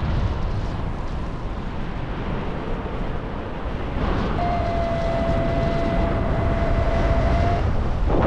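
Wind rushing over the microphone of a paraglider pilot in flight, a dense steady rumble. A steady high electronic tone holds for about three seconds past the middle.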